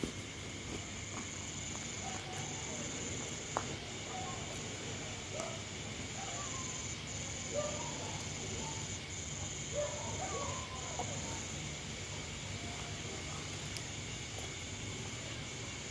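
Crickets trilling steadily in a high, continuous chirr that briefly drops out now and then. Faint short pitched sounds come and go through the middle, and a few light ticks are heard.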